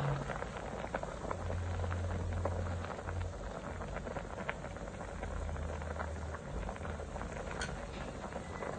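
Pot of vegetable fish soup at a rolling boil: a dense, irregular popping and crackling of bubbles, with a low hum that comes and goes underneath.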